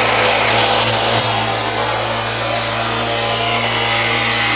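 Electric sander with 40-grit paper running on a cured epoxy-and-fiberglass kayak hull: a steady motor hum under the gritty hiss of the paper cutting the surface. The hiss eases a little about a second in.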